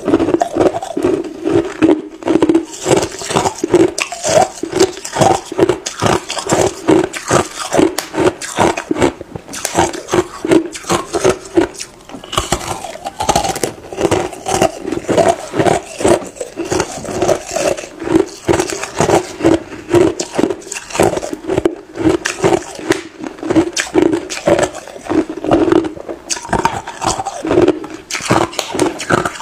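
Hard ice chunks being bitten and chewed close to the microphone: a dense, continuous run of crisp cracking crunches, several a second.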